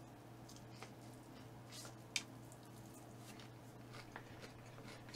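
Faint eating sounds: scattered soft clicks and smacks of chewing and handling food, one sharper click about two seconds in, over a low steady hum.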